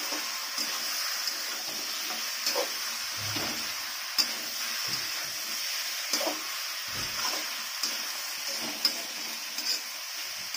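Chicken pieces and browned onions sizzling in a hot metal kadhai while a spatula stirs them, a steady frying hiss with the spatula knocking and scraping against the pan every second or so.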